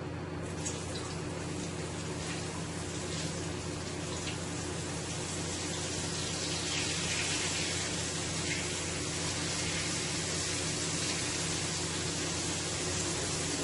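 Flour-dredged butterfish pieces sizzling as they are laid into hot oil in a stainless steel skillet, a steady hiss that grows a little louder about six seconds in as more pieces go in. A steady low hum runs underneath.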